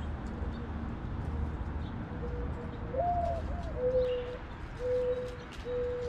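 Mourning dove cooing its mournful song: a first note that rises and falls about three seconds in, then three long, level, lower coos.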